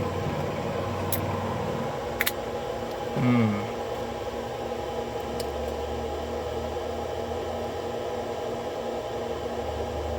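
A few small sharp clicks of a key and padlock cylinder being worked by hand over a steady room hum. The key will not turn: a master pin has caught at the top of the cylinder.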